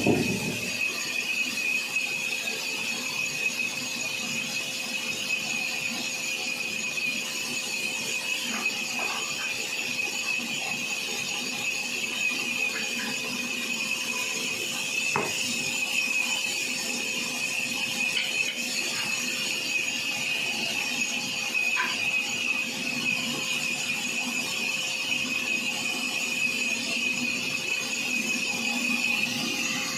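Sawmill wheel saw running steadily with a high-pitched whine over a constant mechanical hum, with a few faint clicks now and then.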